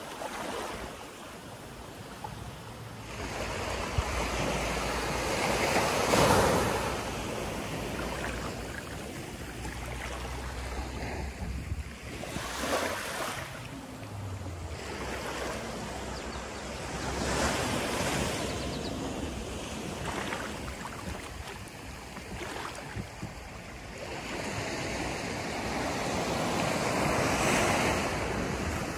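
Small surf breaking and washing up a sand beach, each wave swelling and then fading every few seconds. The loudest swells come about six seconds in and near the end.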